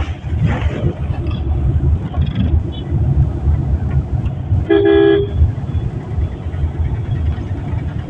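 Steady low engine and road rumble heard inside a car's cabin in slow traffic, with one short vehicle horn toot about five seconds in.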